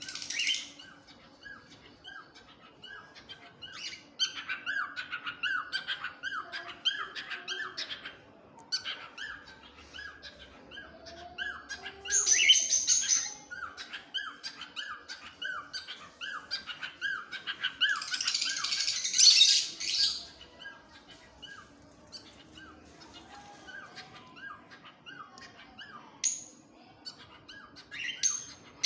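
A bird calling in rapid runs of short chirping notes, broken twice by loud, harsh screeching calls, once near the middle and again about two-thirds of the way through.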